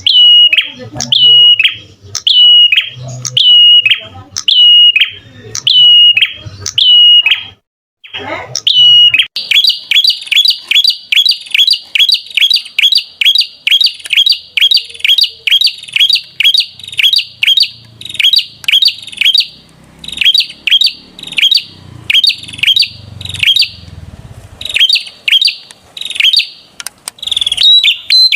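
Perenjak (prinia) singing: a sharp, repeated note with an upward flick, about once every 0.7 s. About 9 seconds in it switches to a faster run of roughly three notes a second, with brief breaks.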